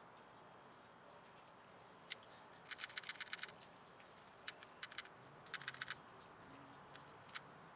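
Hand tool clicking while wires are being worked: sharp clicks, some single and some in quick runs of many clicks.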